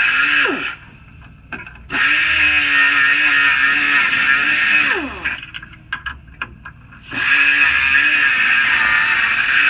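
A high-speed power tool running, released twice with its pitch falling as it spins down, then started up again after a pause of a second or two with a few light clicks.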